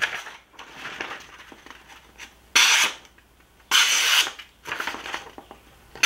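Sheet of printer paper being sliced with the small CJRB Feldspar folding knife's D2 steel blade, with paper rustling between short cutting strokes; three strokes stand out in the second half. The knife is sharp straight out of the box.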